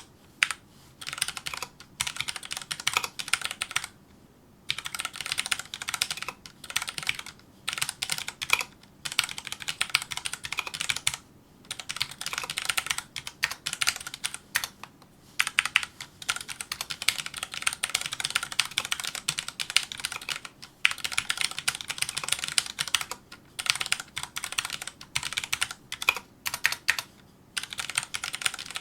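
Fast typing on a Filco Majestouch2 mechanical keyboard with Cherry MX Brown switches: rapid runs of key clacks broken by short pauses.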